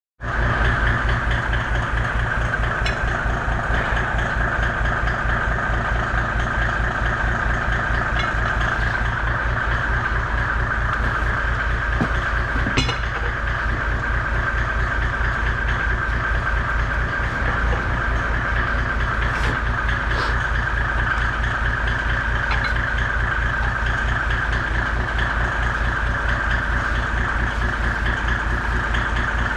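A machine running steadily with a fast, even low throb, and a single short knock about thirteen seconds in.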